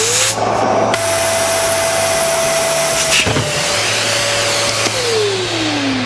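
Kärcher VC 2 vacuum cleaner running at full suction with its hose nozzle sealed onto the top of a one-litre bottle in a lift test. The motor's whine rises as it comes up to speed and holds steady over a loud rush of air. About five seconds in it is switched off, and the whine falls away as the motor winds down.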